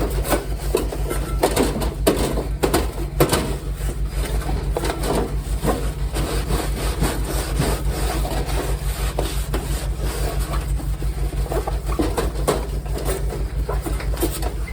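Repeated, irregular scrubbing and rubbing strokes on the metal heat reflector inside a kerosene heater, with small knocks, over a steady low hum.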